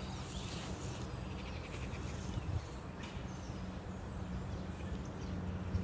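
Outdoor ambience: faint bird chirps now and then over a steady low hum.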